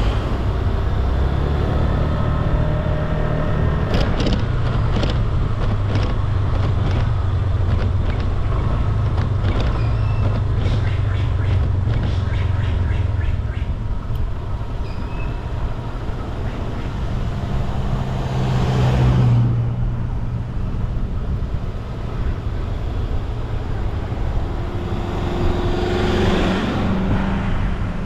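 Scooter engine running steadily under way, with road and wind noise, a run of small ticks and knocks in the first half, and two swells of louder noise, one about two-thirds in and one near the end.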